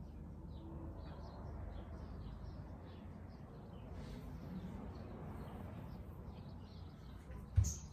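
Quiet rubbing of hands during an outdoor massage over a steady low background, with faint bird chirps; one sharp thump near the end.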